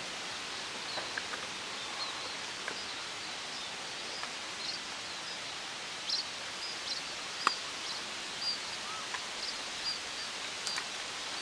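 Forest outdoor ambience: a steady hiss with short high bird chirps every second or so, and a few sharp clicks, the loudest about seven and a half seconds in.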